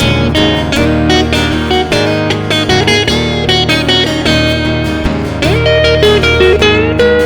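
Instrumental break of an acoustic blues song: a guitar strumming chords under a lead line of long, bending notes.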